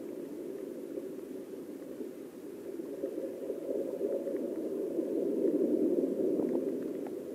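Muffled underwater rushing of river water heard through a submerged camera, a steady low hiss that swells a little past the middle, with a few faint ticks.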